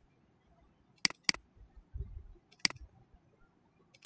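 Computer mouse button clicks: a quick double-click about a second in, then single clicks near the three-second mark and at the end, as folders are opened.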